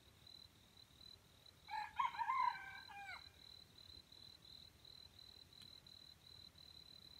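Red junglefowl rooster crowing once, a short crow of about a second and a half starting near two seconds in. An insect's steady pulsing high trill runs underneath.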